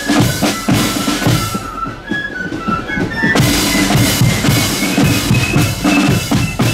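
Marching band playing a parade tune: snare drums and bass drum beating out the march, with a high melody line over them. The drumming thins out for about a second and a half near two seconds in, then comes back in full.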